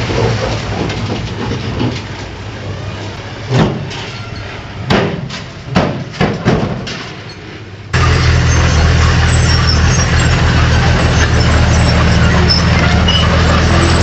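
Heavy diesel machinery running, with several sharp knocks and cracks like breaking or falling debris in the middle. About halfway through it changes abruptly to a louder, steady engine drone.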